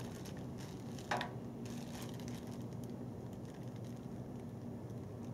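Steady low hum with light handling noise: a brief scuff about a second in and a few faint clicks after it, as hands pick up a paint roller cover in its plastic wrapper.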